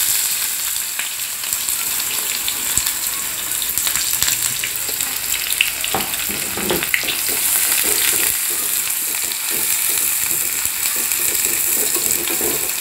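Chopped onions sizzling in hot mustard oil in a frying pan, a loud steady hiss. From about halfway through, a wooden spatula stirs them, adding scraping and light knocks against the pan.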